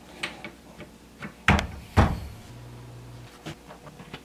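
Two loud, hollow wooden knocks about half a second apart, with light clicks and taps before and after: the particleboard cart being handled and knocked while its caster wheels are fitted.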